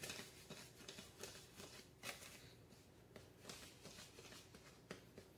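Faint rustling of a hand working dry cornbread mix in a plastic mixing bowl, with a few light scattered taps.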